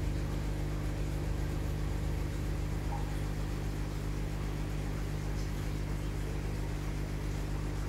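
Aquarium air pump humming steadily, the air supply for the tanks' sponge filters.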